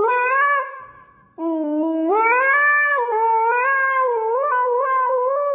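Husky howling: one howl fades out about a second in, then a second howl starts, rises in pitch and is held long, wavering up and down.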